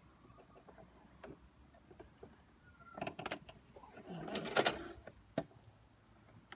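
Handling sounds at a sewing machine: a few light clicks, with a short clattering scrape about four seconds in, just before the machine starts stitching.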